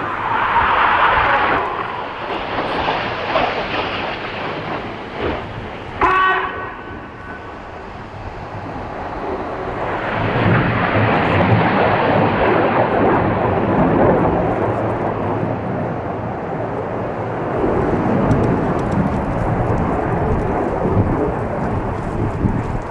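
Jet noise from two BAE Hawk T1 display jets flying crossing passes: a broad rushing rumble that is loud at first, dips around eight seconds in, then builds again from about ten seconds and stays loud. There is a brief sharp sound about six seconds in.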